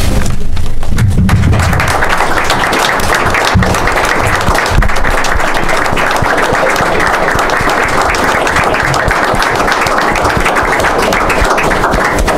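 Audience applauding, a roomful of people clapping steadily. The clapping swells in about a second and a half in and stops just before the end.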